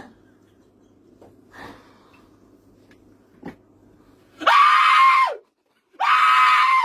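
A person's voice letting out two loud, held screams about a second apiece, the first about four and a half seconds in and the second just after it. Each scream rises in pitch at the start, holds, then drops away at the end.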